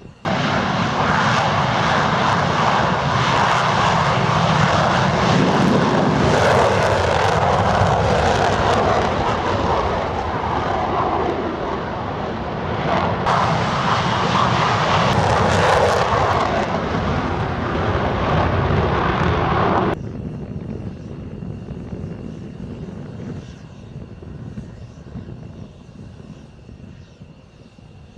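Fixed-wing jet aircraft engine noise, loud and dense, cutting off abruptly about twenty seconds in and leaving a quieter aircraft noise.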